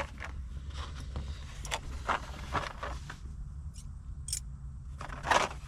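Hands handling and fiddling with a small part, likely a plastic wiring connector: scattered small clicks, scrapes and rustles, with a louder scrape about five seconds in.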